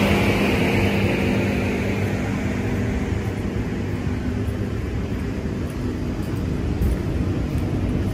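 Steady machine hum from a stabled double-deck electric suburban train, with several held low tones that weaken slowly and a hiss that fades over the first few seconds.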